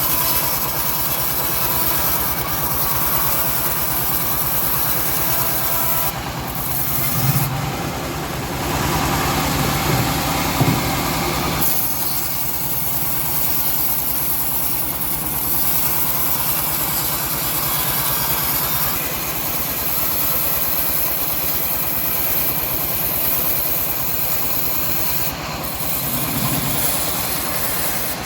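Engine-driven homemade bandsaw mill running under load, its blade cutting lengthwise through a teak log: a steady engine note with a sawing, rasping noise over it. The cut grows louder for a few seconds about a quarter of the way in, then runs steady again.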